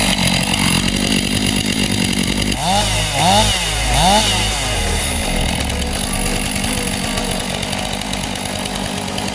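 Stihl MS 500i fuel-injected two-stroke chainsaw running, with three quick revs up and back down about three seconds in.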